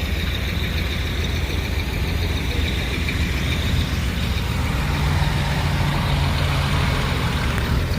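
A motor vehicle engine running steadily at low speed, with an even engine note that holds from about five seconds in until near the end.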